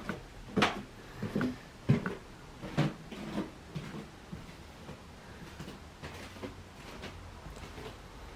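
A cardboard box knocking and scraping, five or so short knocks in the first few seconds as the cat shifts about in it, then only low room tone.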